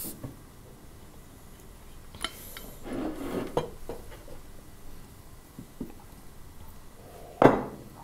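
Breakfast tableware at a kitchen table: scattered quiet clinks and rubbing of cups, glasses, jars and cutlery, then one sharp knock near the end as something is set down on the table.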